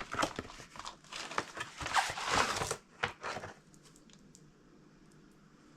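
Parcel packaging crinkling and rustling as it is handled and opened, stopping about three and a half seconds in, followed by a few faint light clicks.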